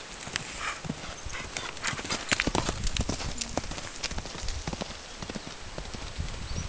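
Hoofbeats of a buckskin Arabian-cross mare loping on a dirt pen: a run of uneven dull thuds and clicks as her hooves strike the ground.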